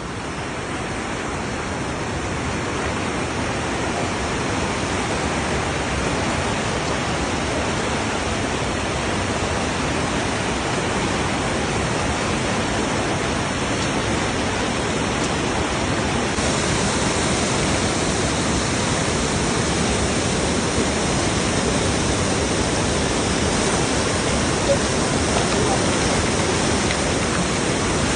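River water rushing steadily, a constant even noise that builds a little over the first few seconds.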